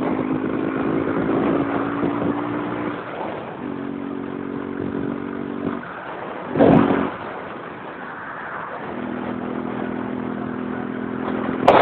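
A vehicle engine running at road speed with road and wind noise, its pitch stepping up and down a few times. A brief loud burst of noise about two-thirds of the way through.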